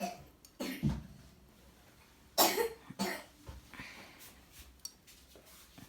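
A person coughing: a short cough under a second in and a louder, sharper one about two and a half seconds in.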